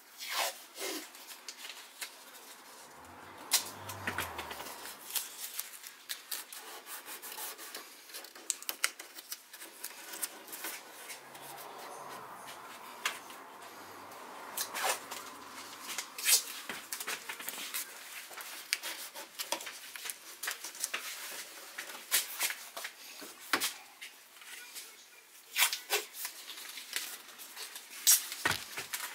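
Hands pressing and rubbing a tape-on overfender flare into place, with irregular sharp clicks and taps and handling rustle throughout.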